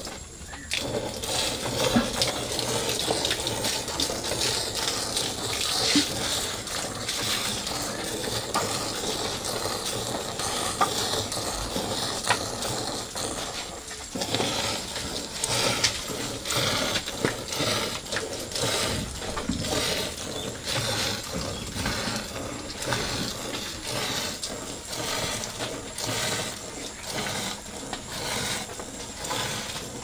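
Cow being milked by hand: milk squirting from the teats in quick repeated jets into a metal pail already holding foamy milk.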